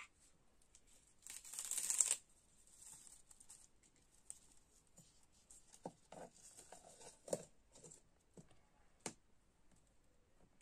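Leaves being stripped from a sprig with a brief rustling tear, then a plastic lid fitted onto a steel mixer-grinder jar with a few light clicks and knocks.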